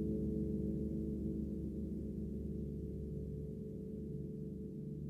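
A gong's resonance dying away: a deep cluster of low, steady tones that fades slowly, the lowest tones wavering.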